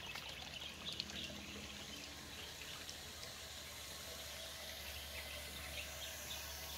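Faint outdoor ambience: the tiered garden fountains trickling into their stone basin, with birds chirping now and then, mostly in the first second or so.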